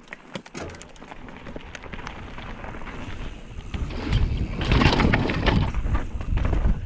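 Mountain bike rolling down a rocky singletrack: tyres crunching over rock and the bike rattling in quick clicks, with wind rumbling on the camera microphone. It grows steadily louder as the bike picks up speed.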